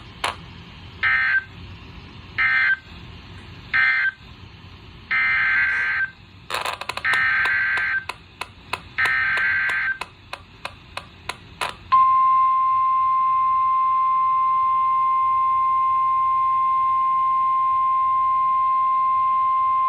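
Emergency Alert System data tones from a weather-radio broadcast. First come three short, buzzy SAME data bursts that close the previous warning, then three longer header bursts, with scattered clicks between them. About twelve seconds in, a loud, steady single-pitch warning alarm tone starts and holds.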